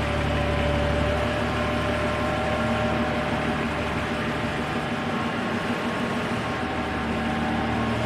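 TCM forklift's engine running steadily at low speed as the truck creeps forward, with a steady whine over it.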